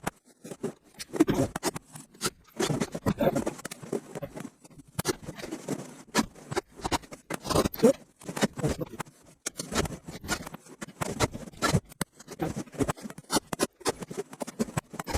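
Irregular scraping, rustling and light knocks with no steady rhythm, from hand work on wood during workbench assembly.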